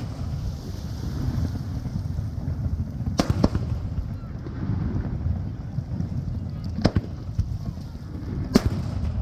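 Aerial fireworks shells bursting: a quick double bang about three seconds in, then two more single bangs a few seconds apart, over a steady low rumble of wind on the microphone.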